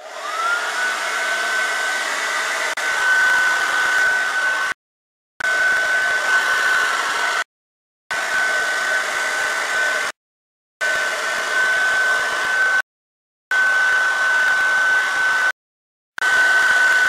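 Handheld hair dryer switched on, its motor whine rising as it spins up, then running steadily with a high whine over rushing air as it blow-dries hair through a brush. The sound cuts out abruptly to silence five times for about half a second each.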